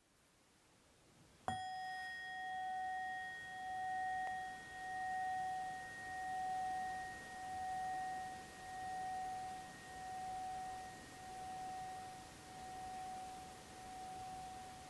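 A single strike on a resonant metal instrument about a second and a half in, then a long bell-like tone ringing on and slowly fading, wavering in loudness roughly every second and a half.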